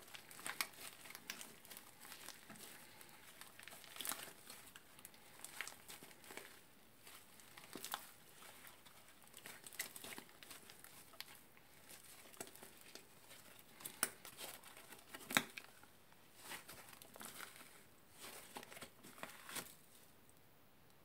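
Hands squeezing and kneading old, dried-out purple slime mixed with shaving cream, making irregular soft squelches and crackles. Quieter near the end.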